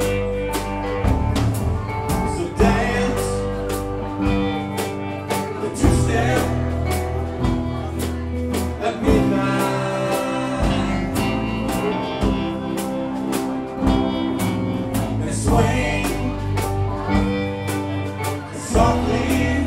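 Live alt-country band playing: strummed acoustic guitar, electric guitars, bass guitar and a drum kit, with a lead vocal joined by a harmony vocal.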